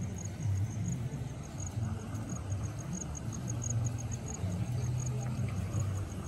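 A vehicle engine running with a steady low rumble, with insects chirping over it in a high, even pulse of about six chirps a second.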